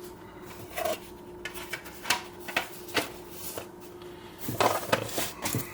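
Home movie reels and their cases being handled: scattered light clicks and knocks with some rubbing, busiest near the end.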